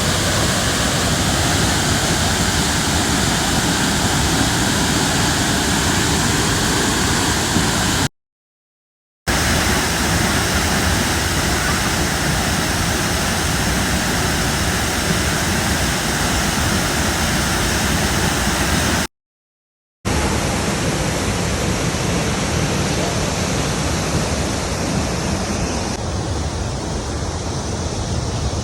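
Waterfall: a loud, steady rush of falling water, broken twice by about a second of silence.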